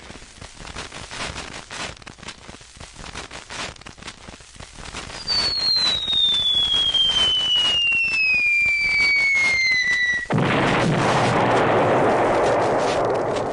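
Hanna-Barbera cartoon falling-bomb sound effect: a long whistle gliding down in pitch for about five seconds, then a sudden loud explosion that rumbles on for a few seconds. Faint crackling clicks come before the whistle.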